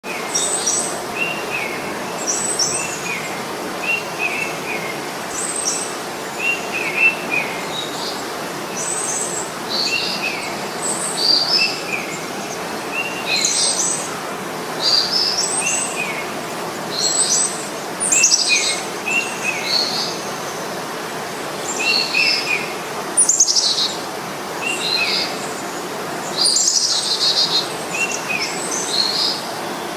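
Birds chirping: a short phrase of two or three quick falling notes repeats every second or two, with higher, sharper chirps over it. A steady hiss of background noise runs beneath.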